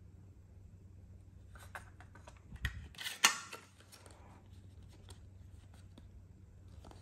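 Hands handling a plastic cassette tape: a few knocks and one sharp plastic click about three seconds in, then light rustling of the folded paper J-card insert being opened out.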